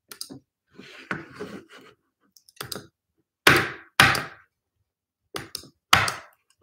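Handling noise close to the microphone: a string of dull thunks and knocks, with some rustling in the first two seconds, the loudest thunks about three and a half, four and six seconds in.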